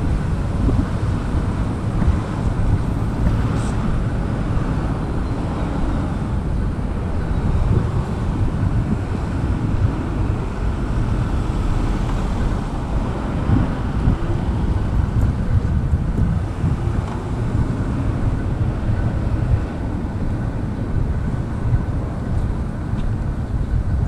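Wind buffeting a GoPro's microphone: a loud, unbroken low rumble that swells and dips with the gusts.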